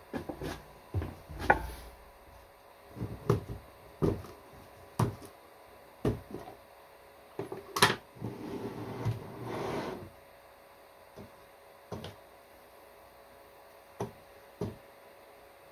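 Handling knocks and clicks as a gloved hand unfastens and lifts the metal build plate off a Geeetech Alkaid resin 3D printer and works the lid off a plastic tub. About a dozen separate knocks, the sharpest about one and a half and eight seconds in, with a short stretch of rubbing and scraping between about eight and ten seconds.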